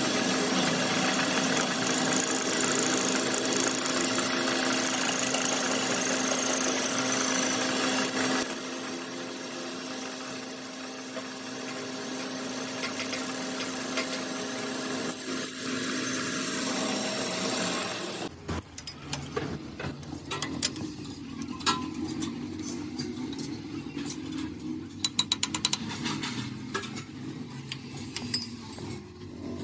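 Metal-working machine noise: a lathe running with a steady hum and hiss. About 18 seconds in, the sound changes abruptly to a lower hum with irregular clicking and knocking of metal.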